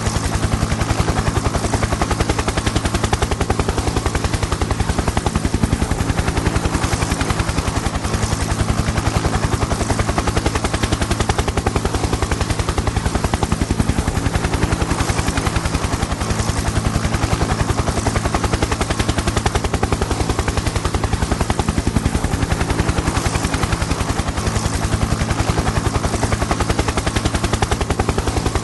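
Helicopter in flight: a rapid, even chop of the rotor blades over a steady low engine hum.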